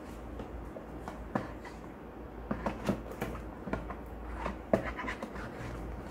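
Cardboard product boxes and packaging being handled: a string of light, irregular taps and scrapes as a wireless charger's box is closed and picked up, over a low steady hum.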